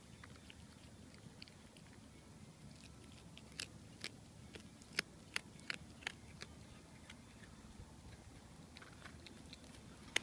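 A cat chewing a bird it has caught, with sharp crunches as it bites through the bones, most of them in a quick run in the middle.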